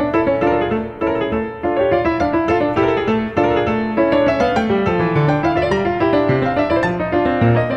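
Background piano music: a steady flow of notes over a moving bass line.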